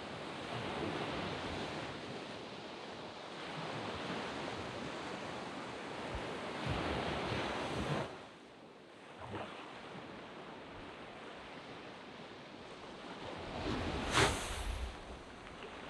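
Surf breaking and washing up a sand beach, swelling and ebbing. It eases off about halfway through, then one louder wave crashes near the end.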